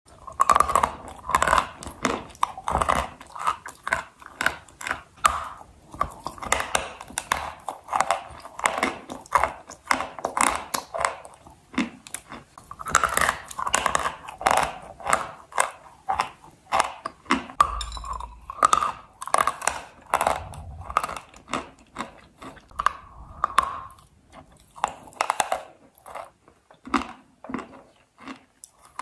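Close-miked biting and chewing of dry, crisp white clay: rapid brittle crunches several times a second, thinning out over the last few seconds.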